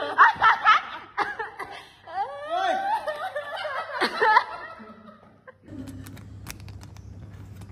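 People laughing and snickering, with bursts of giggles for the first four seconds or so. It then gives way to a quieter room with a steady low hum and a few faint clicks.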